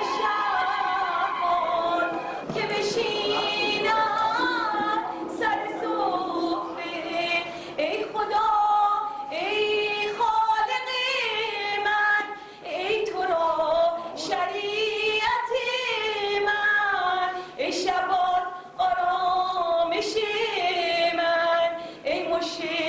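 Women singing unaccompanied, a wavering chant in short phrases with brief breaks between them, sung as a lament in the Nodbeh Sara ceremony.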